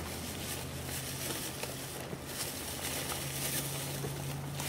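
Steady background hiss and a low hum, with faint scattered rustles of aubergine leaves and a plastic bag as the fruit is picked by hand.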